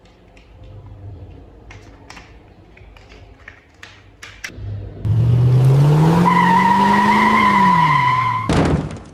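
Scattered light clicks of plastic toy parts being handled, then about five seconds in a loud engine-revving sound whose pitch climbs and falls back, cutting off suddenly with a thud near the end.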